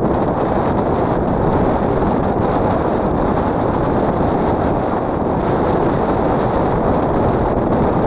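Ocean waves breaking: a loud, steady wash of surf noise.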